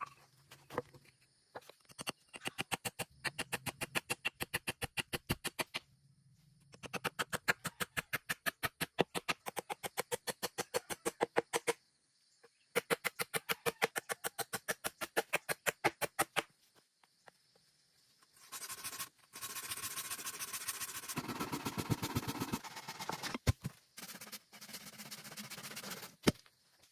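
Hand saw cutting wood: three runs of rapid, even strokes with short pauses between them, then a longer stretch of steady rustling noise near the end.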